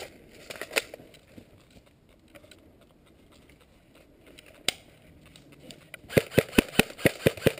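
Airsoft gun firing: a single shot or two, then, about six seconds in, a rapid string of sharp shots at about five a second.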